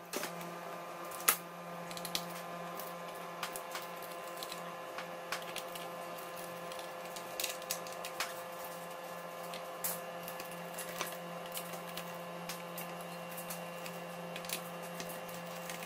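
Faint, scattered clicks and taps of a small precision screwdriver and screws on a laptop's plastic base as the screws are taken out, with one sharper click about a second and a half in, over a steady low hum.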